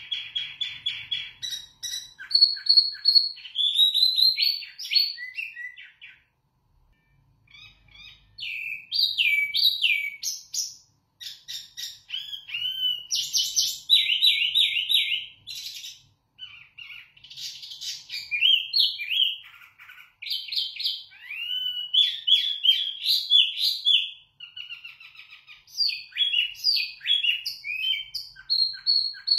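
A caged wambi mini songbird singing a loud, clear song of rapid, varied whistled phrases and trills, in bouts broken by short pauses, the longest about six seconds in.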